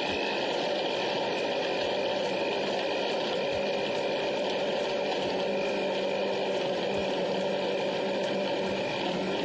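Electric countertop blender running steadily, blending an iced energy-drink frappe, with a constant motor hum over the churn of the mixture.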